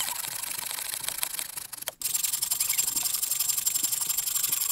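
Bow saw cutting through the trunk of a small standing tree in quick back-and-forth strokes, the teeth rasping in the wood. It breaks off for an instant about two seconds in, then carries on.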